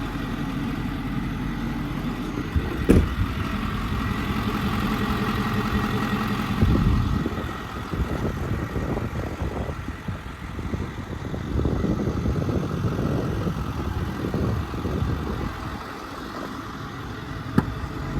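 Ford 6.4-litre Power Stroke V8 turbo-diesel idling steadily, with a sharp knock about three seconds in.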